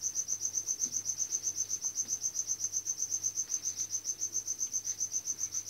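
A cricket chirping without a break: a fast, even train of high-pitched pulses, over a dozen a second, over a faint low electrical hum.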